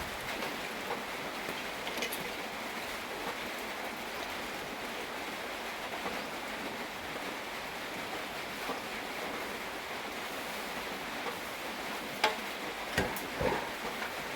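Steady rain falling, an even hiss throughout, with a few sharp knocks near the end.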